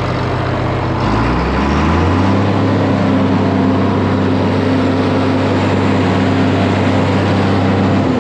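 Diesel tractor engine running under load: it revs up about a second in, holds at high speed, then winds down at the end.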